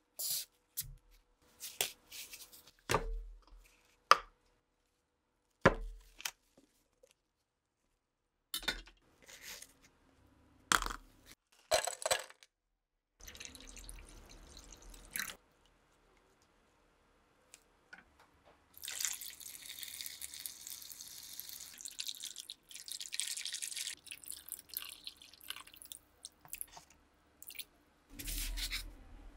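A string of sharp clicks and knocks as hard parts are handled and set down, followed by water being poured and splashing for several seconds.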